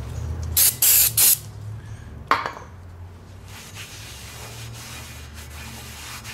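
Aerosol brake cleaner sprayed in three quick hissing bursts onto a new brake rotor, then a single knock, then a rag rubbing over the rotor face to wipe off its cosmoline rust-inhibitor coating.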